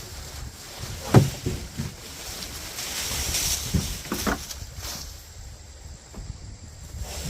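Tree limbs and brush being tossed onto a brush pile: irregular woody thuds and clunks, the loudest about a second in, with rustling of twigs and leaves between them.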